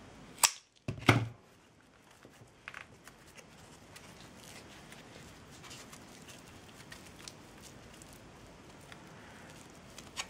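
Two sharp clicks close together about a second in, then faint rustling and small ticks of hands working jute strips.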